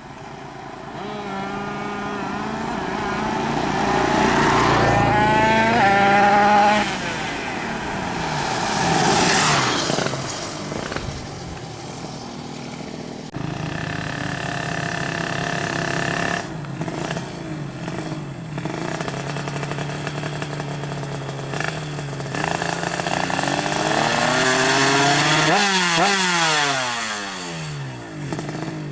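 A 130cc two-stroke underbone drag bike's engine being revved hard several times, its pitch climbing and dropping back between blips. The loudest runs come about four to six seconds in and again near the end.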